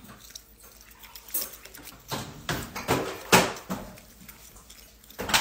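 Black-capped capuchin monkey biting and chewing an asparagus spear: a series of short, sharp crunches and clicks, most of them between about two and four seconds in, with one more near the end.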